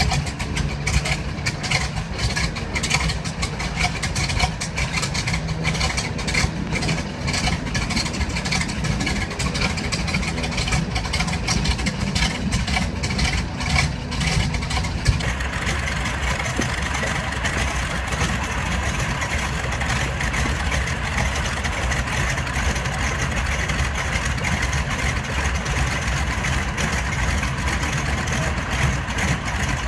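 Ford Tri-Motor's radial engines running with a rapid, uneven firing beat. About halfway through, the sound turns fuller and higher, as with more power or another engine joining in.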